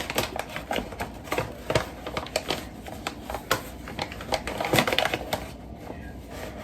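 Irregular clicking and tapping of a measuring cup being worked in a bag of flour and knocked against the bag and bowl while flour is scooped out, with a busier cluster of knocks about five seconds in.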